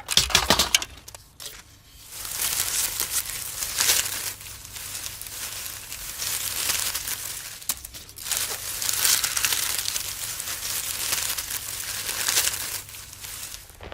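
Loose videotape being scrunched and crumpled by hand, a crackling rustle used as a foley effect for a dinosaur eating a plant. A brief scrunch comes first, then a longer stretch of crumpling from about two seconds in until near the end, with short pauses.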